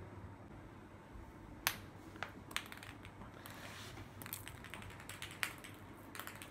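A ping pong ball clicking on a hard stone floor as a cat bats it about: a scattered run of light, sharp taps, single at first, then several close together near the middle and again near the end.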